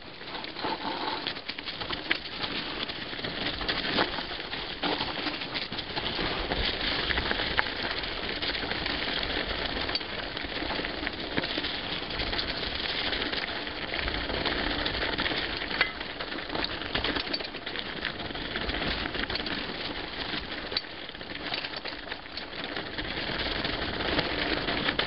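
2011 Specialized Rockhopper mountain bike descending a dirt singletrack at speed: tyres running over dirt, leaves and roots with a continuous rattle and clatter of the bike over the bumps, and rushing wind noise.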